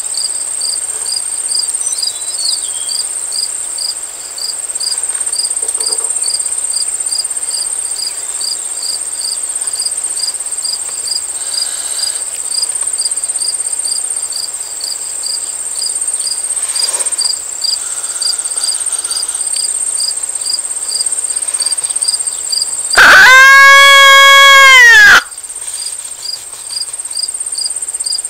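Crickets and other insects trill steadily. About 23 seconds in, a coyote call sounds one loud howl of about two seconds, held at one pitch and dropping off at the end, sent out to draw a reply from coyotes.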